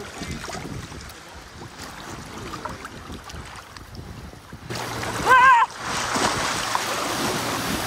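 Shallow sea water lapping and sloshing around a camera held at water level, then about five seconds in a breaking wave crashes over it with a loud, sustained rush of surf. A person lets out a short, high, wavering yell as the wave hits.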